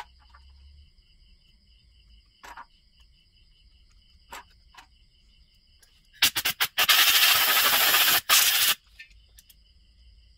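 A pressurised jet hissing loudly through a chainsaw carburetor to clean it: a few quick bursts about six seconds in, then a long blast with one brief break. Before it come a few light clicks of small carburetor parts being handled.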